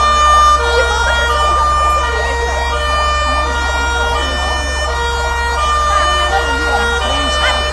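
Fire truck's two-tone hi-lo siren, switching back and forth between two notes about once a second over a steady low rumble.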